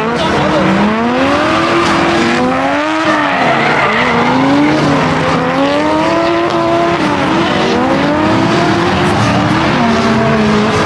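Two drift cars sliding in tandem, their engines revving up and down about once a second as the drivers hold the slides, over a steady screech of smoking rear tyres.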